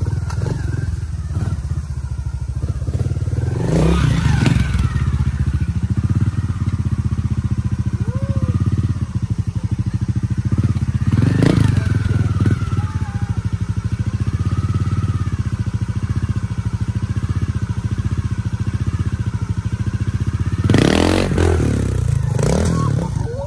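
Trials motorcycle engine running low and steady, blipped into sharp revs about four seconds in, again near the middle, and hardest near the end as the bike climbs a steep dirt bank.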